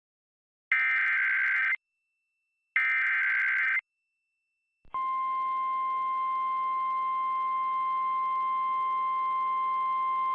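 Emergency Alert System SAME header: two harsh, screeching digital data bursts, each about a second long, a second apart. About five seconds in, a steady single-pitch NOAA Weather Radio 1050 Hz warning alarm tone begins. The alarm tone signals that a severe thunderstorm warning is about to be read.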